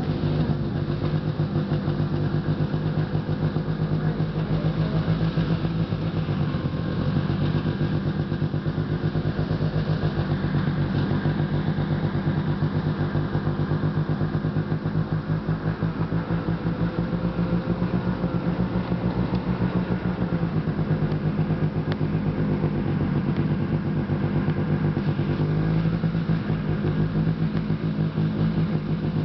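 Yamaha snowmobile engine running under way, heard close up from the sled, its pitch shifting slightly a few times with the throttle.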